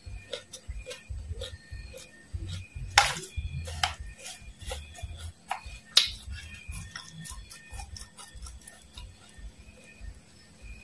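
Close-miked crunchy chewing of fried dried worms and mole crickets: a run of crackling crunches with dull jaw thumps, the sharpest crunch about three seconds in. About six seconds in, a metal spoon clinks against the plate.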